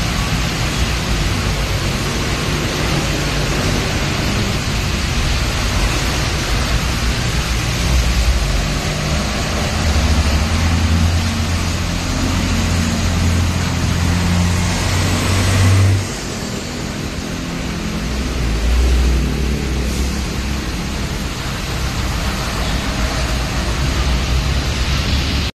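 Heavy container trucks passing slowly, their diesel engines running with a low hum over a steady hiss of tyres on the wet road. The hum is loudest in the middle, and the hiss drops off suddenly about two-thirds of the way through.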